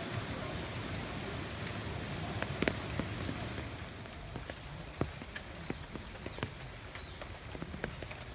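Rain falling in a tropical garden, with irregular close drops ticking and splashing off leaves and paving. A run of brief high chirps sounds in the middle.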